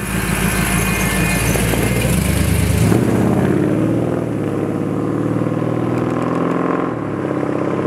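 1956 Chevrolet 3100 pickup's engine running as the truck drives past on the road. The engine note changes as the truck passes, about three seconds in, and carries on as it drives away.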